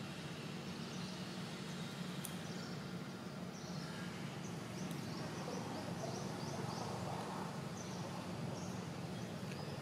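Outdoor ambience: a steady low hum with faint, short, high chirps of small birds, more frequent in the second half.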